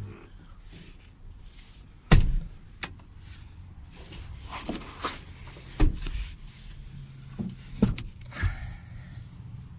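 Thumps and knocks from the rear seat and interior trim of a Lada Granta being pushed and handled. The loudest knock comes about two seconds in, with two more later and lighter clicks between. A short creak follows near the end.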